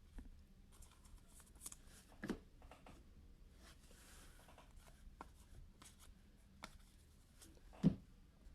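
Faint rustling and light clicks of trading cards and card packs being handled and sorted, with a short louder thump near the end.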